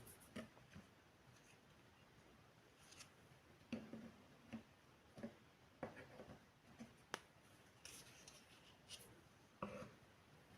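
Faint, irregular clicks and taps of small miniature toy kitchen pieces being handled and set down, about a dozen or more over the stretch.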